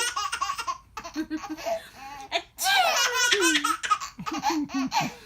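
An 8-month-old baby laughing hard, in several bursts of high-pitched laughter with short breaks between them.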